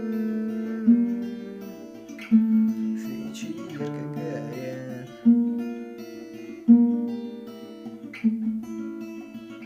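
Acoustic guitar playing five slow strummed chords, each left to ring out, with a few single picked notes in between.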